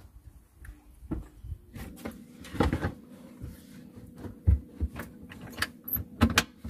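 Wooden knocks and clunks as a plywood cupboard panel is handled and fitted into a cabinet. There are several separate knocks, the loudest about halfway through and near the end.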